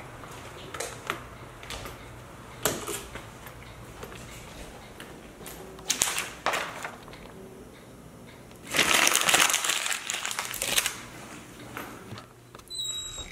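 Handling noises: scattered knocks and clicks, then about two seconds of loud rustling and crinkling, the loudest part, and a short high two-tone beep near the end.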